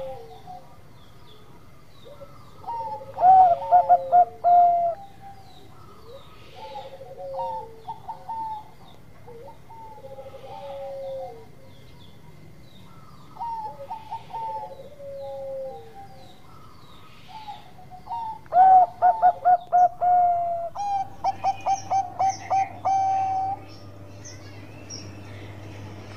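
Zebra dove (perkutut) singing: repeated cooing phrases, each a quick run of short staccato coos ending in a longer drawn-out coo, one phrase every few seconds. The loudest phrases come a few seconds in and again in the last third.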